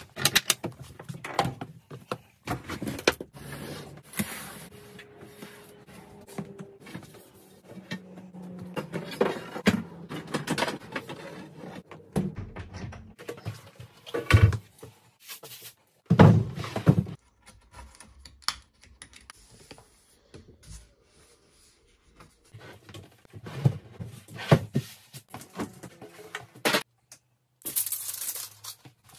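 Scattered knocks, thumps and clatter from handling wood and tools, with short quiet gaps between them.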